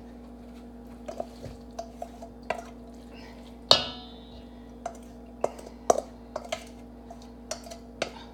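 Kitchen dishes and utensils clinking and knocking while food is handled, a dozen or so scattered taps with one louder ringing clank about four seconds in. A steady low hum runs underneath.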